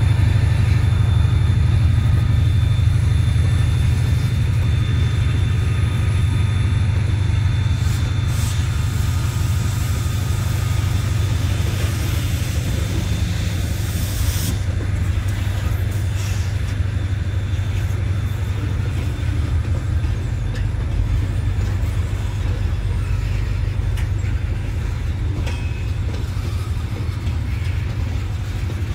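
Freight train of open-top hopper cars rolling past at close range: a steady low rumble of steel wheels on rail. A brief high hiss starts about twelve seconds in and cuts off suddenly.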